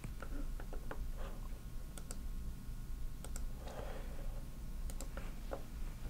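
Irregular sharp clicks from a computer keyboard and mouse, over a low steady hum.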